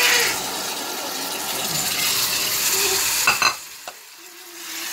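Raw rice poured into a stainless steel pan of frying onion, garlic, ginger and spices, the hot oil sizzling. A metal spoon clinks sharply twice against the pan a little over three seconds in, and the sizzle dies down after that.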